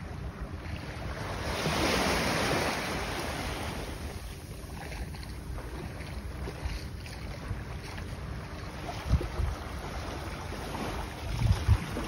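Wind buffeting the microphone over small waves washing in shallow seawater, with a louder rush about two seconds in and a few low bumps near the end.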